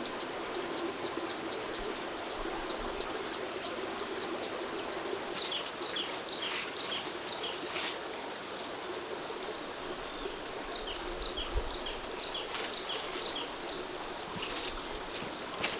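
Mountain stream running steadily, with a bird calling in three runs of quick, short, high chirps. A brief low thump comes a little past halfway.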